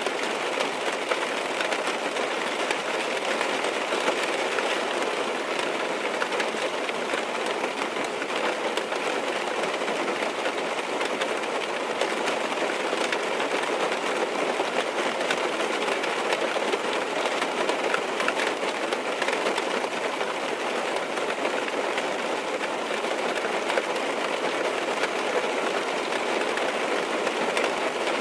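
Steady rain falling on a car's roof and windows, heard from inside the cabin as a dense, even patter of drops.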